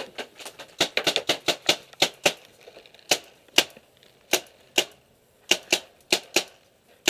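Paintball markers firing: sharp pops in quick, uneven strings, densest about a second in, then thinning to single shots spaced about half a second apart.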